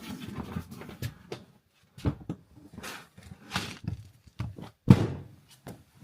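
Irregular knocks, scrapes and rustles from handling the vinyl sheet and working on the van's plywood floor, with a heavy thump about five seconds in.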